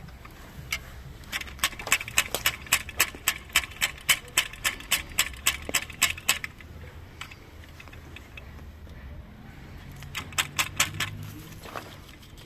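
Ramrod tamping the charge down a muzzleloader's barrel: a quick run of sharp clicks, about four a second for some five seconds, then a shorter run of about ten clicks near the end.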